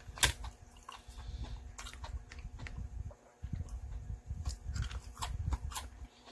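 Close-miked chewing of crisp-edged potato pancake (gamjajeon), with wet lip-smacking and crunchy bites throughout. A sharp click comes just after the start.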